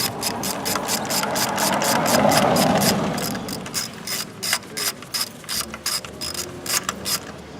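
Rapid, regular mechanical clicking, about five clicks a second, with a louder rushing swell two to three seconds in; the clicking stops shortly before the end.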